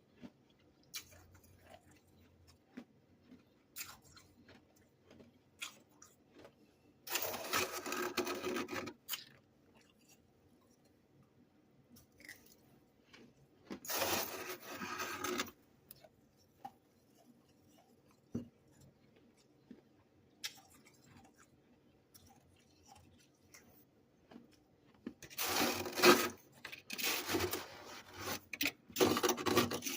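Close-up crunching of chewed freezer-frost ice chunks, coming in bursts of a second or two with small clicks and near-quiet stretches between them. A longer, louder run of crunching starts near the end.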